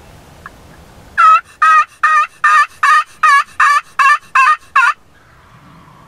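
Turkey yelping: a run of ten evenly spaced yelps, about two and a half a second, starting about a second in and stopping abruptly near the end.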